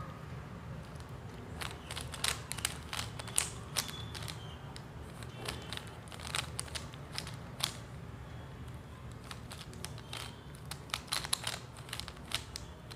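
Rubik's cube being turned: the plastic layers click and clack in quick irregular runs of twists as the last layer is worked towards solved.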